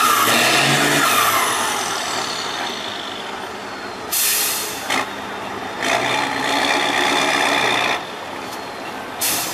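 Tatra 8x8 trial truck's diesel engine revs falling away, then running low, while compressed air hisses out of its pneumatic system in several sharp bursts, the longest lasting about two seconds.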